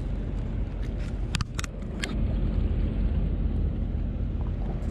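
Steady low rumble of a boat's engine running, with a few sharp clicks about a second and a half and two seconds in.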